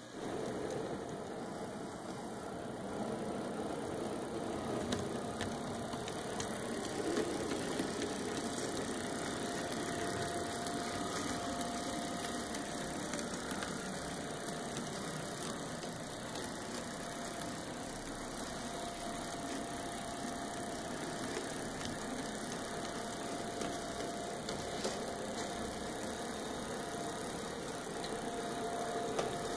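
Sixty-year-old two-rail O scale model steam locomotive, a Reading class I8 2-8-0, running along the track: a steady mechanical whir of its electric motor and gear drive, with its wheels rolling on the rails and a thin whine that comes and goes.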